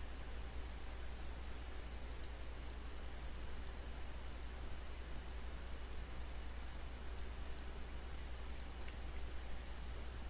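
Computer mouse clicking now and then, single clicks and quick pairs, over a steady low electrical hum and faint hiss.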